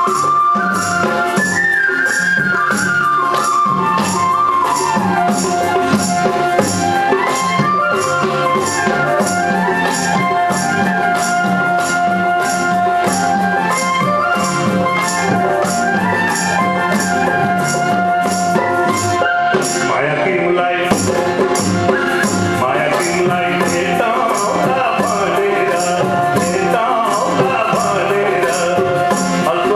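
Nepali folk music: harmonium and bansuri flutes play a melody over a steady high percussion beat of about two strokes a second. A man's singing voice comes in about two-thirds of the way through.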